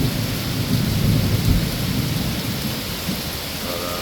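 Thunder rumbling over steady heavy rain. The rumble starts with a sudden clap, is deep and loudest for the first couple of seconds, then eases off under the rain.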